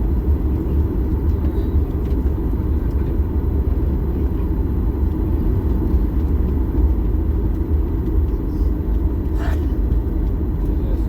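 Steady low rumble of a moving vehicle heard from inside its cabin, with a faint click about nine and a half seconds in.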